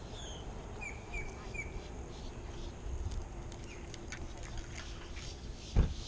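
Small bird chirping outdoors, three short quick chirps about a second in among fainter calls, and a single dull thump near the end.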